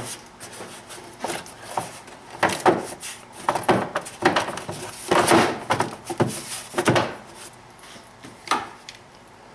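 Hard plastic air intake snorkel being pushed and seated into place, giving irregular plastic clicks, knocks and rubbing, busiest in the middle and ending with a single knock near the end.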